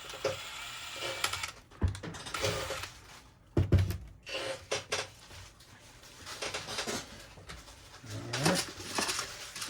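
Small tools and parts being handled on a workbench: scattered clicks, taps and knocks, the loudest knock about a third of the way in.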